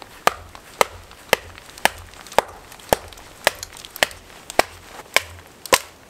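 Batoning: a wooden branch knocking on the spine of a CRKT Seismic folding knife about twice a second, eleven sharp strikes in all, driving the blade down through a log to split it.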